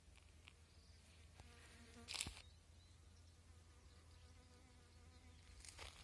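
A flying insect buzzing faintly, twice: briefly about a second and a half in, then for about three seconds from near the three-second mark. A single short rustle about two seconds in.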